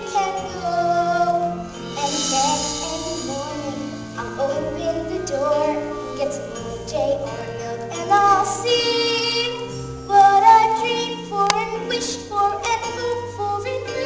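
A song: a high singing voice holding and gliding between notes over a steady instrumental accompaniment.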